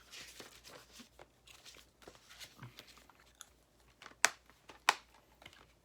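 Handling of a plastic DVD box set: soft rustling with scattered light clicks, and two sharper clicks a little after four seconds and just before five seconds in.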